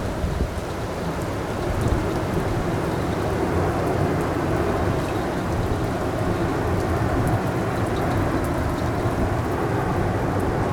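Heavy rain pouring down, with strong gusty wind rumbling on the microphone: a steady, dense hiss over a low rumble, with tiny drop ticks on top.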